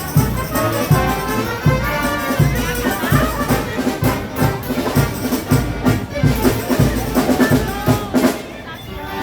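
Frevo played by a brass-and-percussion frevo orchestra: a bass drum beats steadily about twice a second under lines from the brass. The music drops off briefly near the end.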